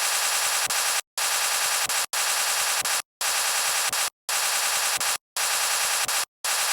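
Sleeping person's snoring, played back sped up: harsh, fast-rattling snores about a second long, one after another with short silent gaps between them.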